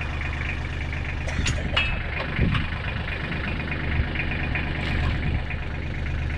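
Engine of a working machine running steadily at a low pace, with several short knocks and clanks about one to five seconds in.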